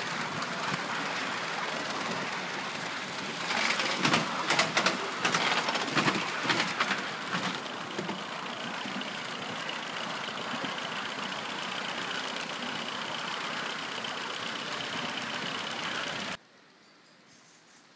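3½-inch gauge live-steam model LMS Stanier 8F 2-8-0 and its train running along the track: a steady hissing rumble, with a stretch of rapid clicking and knocking a few seconds in that lasts about four seconds. The sound cuts off abruptly near the end.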